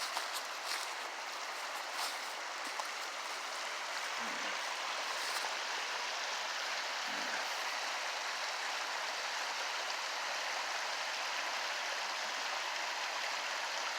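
A fast-flowing river rushing steadily, high with water, with a few faint clicks in the first couple of seconds.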